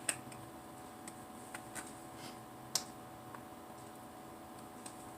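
Faint, irregular light clicks and scrapes of a knife spreading garlic mayonnaise onto French bread, over a low steady room hum.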